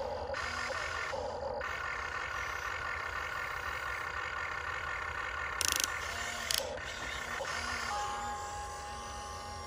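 Huina 1592 RC excavator's electric drive motors and gearboxes whining as the boom, arm and bucket move to dig, the pitch rising and falling with each movement. Two short sharp noises come about six seconds in, and near the end the whine settles to one steadier tone.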